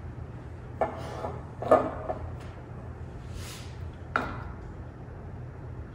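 A few clinks and knocks as a metal stovetop kettle is handled against a plastic funnel and glass mason jar, the loudest about two seconds in. There is a brief hiss in the middle, over a low steady hum.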